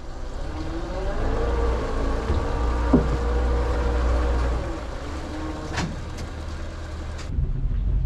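Honda outboard engine idling with a low rumble and a faint hum that rises slightly in the first second, with one sharp knock about three seconds in and a few light clicks later. Near the end it cuts to road noise from the boat being towed on its trailer.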